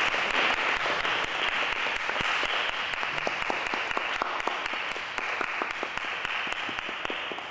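Audience applauding: a dense patter of many hands clapping, thinning out and fading toward the end.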